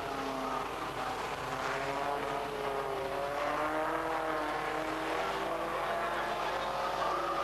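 Engines of production saloon racing cars, a BMW M3 among them, approaching on a wet track. Several engine notes overlap, each rising and falling in pitch as the cars accelerate and lift.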